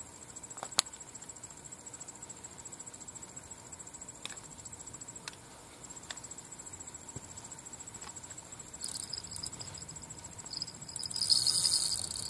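A high, steady insect-like trill runs throughout. About nine seconds in, and louder near the end, a high hissing buzz comes in from one of the rods on the rod pod: a fish taking the bait and pulling line out, a bite.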